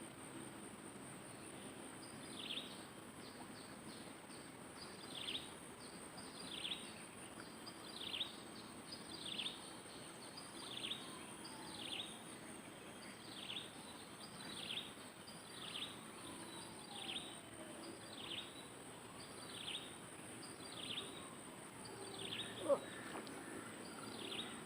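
A bird calling over and over, a short high note sliding downward about every second and a half, over a steady high insect drone. A brief, sharper sound stands out near the end.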